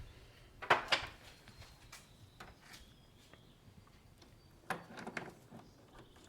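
Light clicks and clinks of a chain breaker tool and a motorcycle chain being handled, in two short clusters, one about a second in and one about five seconds in, with faint ticks between.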